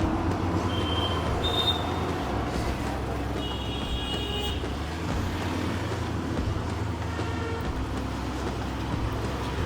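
Steady rumble of road traffic and vehicle engines, with a few short horn toots about one, one and a half, and four seconds in.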